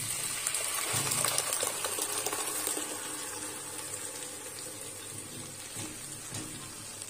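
Thick tomato paste poured into hot sesame oil with fried garlic and curry leaves, sizzling and crackling. The sizzle is loudest in the first few seconds and slowly dies down.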